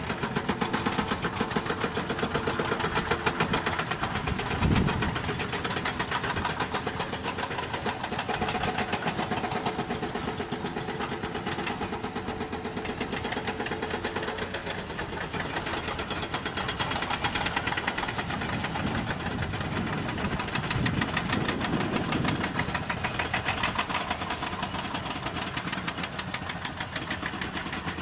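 Heavy diesel engine of a dump truck running with a rapid, even pulse, swelling briefly about five seconds in and again near twenty-two seconds.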